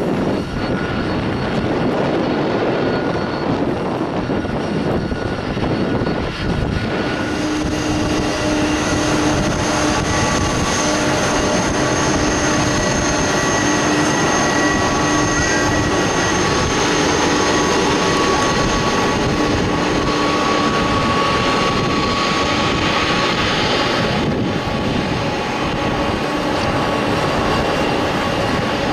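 Boeing 767-300ER's twin turbofan jet engines running at taxi power: a steady jet rush with several steady whining tones over it, which come in about seven seconds in. The mix shifts again a few seconds before the end.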